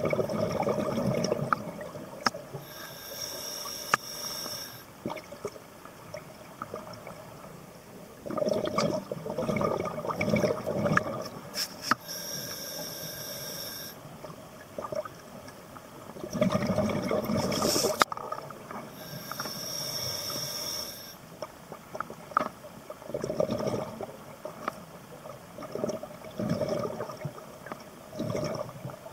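Scuba diver breathing through a regulator underwater: each slow inhale is a high hiss from the regulator, followed by a long burst of exhaled bubbles rumbling past, in a slow cycle of about four breaths.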